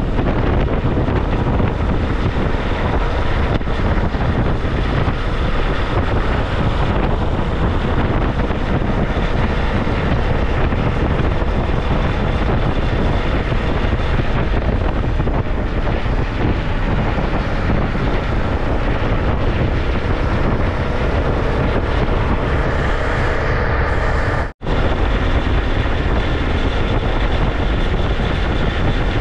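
Motorcycle riding at road speed, heard as a steady loud rush of wind buffeting the microphone over the running engine. The sound cuts out for an instant about 24 seconds in, then resumes.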